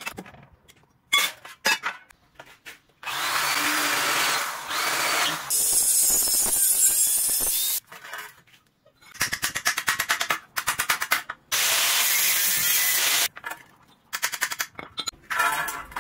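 Galvanized sheet-steel strips being worked and handled: a few sharp clicks, then repeated bouts of loud scraping and rasping noise, each a second or two long, some made of rapid fine strokes.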